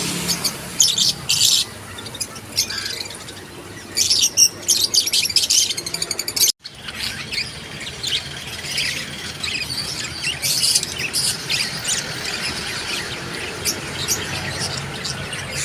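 Many birds chirping and squawking at once, dense overlapping high calls. The sound cuts out for an instant about six and a half seconds in, then the chirping resumes.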